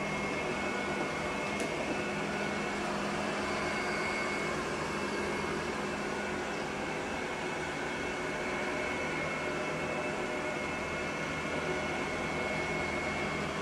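Robot vacuum cleaner running, a steady whirring hum with a thin, constant high whine.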